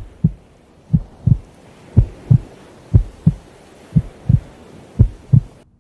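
Slow heartbeat: steady lub-dub double thumps about once a second, six beats, stopping just before the end.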